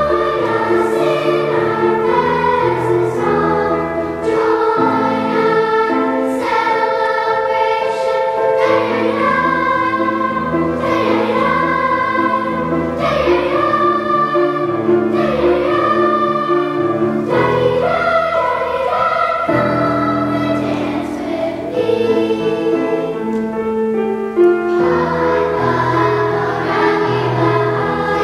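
Girls' choir singing a piece in parts, with piano accompaniment holding lower notes beneath the voices.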